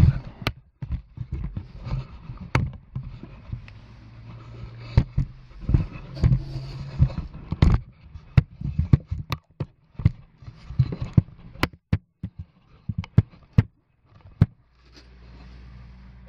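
Handling noise: cloth rubbing and scuffing over the camera's microphone, with many irregular knocks and clicks as the camera is moved about against clothing.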